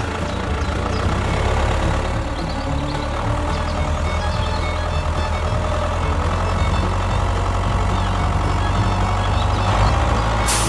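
A small engine or motor running steadily with a low hum and a faint higher whine, the kind of drive used on a DIY mini tractor.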